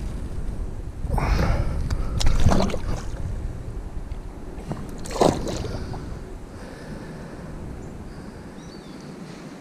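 Splashing and sloshing as a hooked bass is pulled out of the water beside a kayak, in noisy bursts between about one and three seconds in. A shorter, sharp burst follows about five seconds in.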